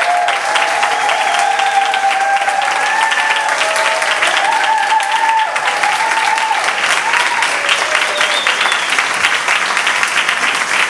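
Audience applauding, with several voices cheering and calling out over the clapping for the first half or so.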